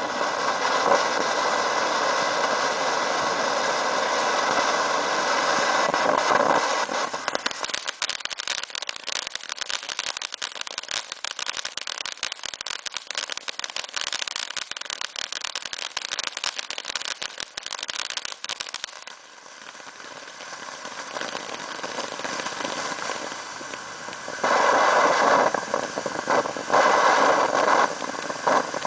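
Barrel fountain firework spraying sparks: a steady loud hiss for about six seconds, then a long stretch of dense crackling. After that the hiss drops low and builds back up, turning loud again near the end.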